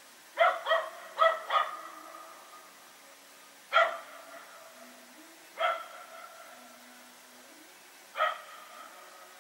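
A dog barking: a quick run of four barks about half a second in, then three single barks spaced about two seconds apart.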